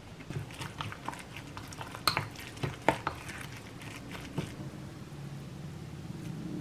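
Wooden spoon stirring a wet mix of rice, egg, tuna and chopped vegetables in a bowl. Scattered clicks and knocks of the spoon against the bowl are heard, the two loudest about two and three seconds in, followed by softer, steadier mixing.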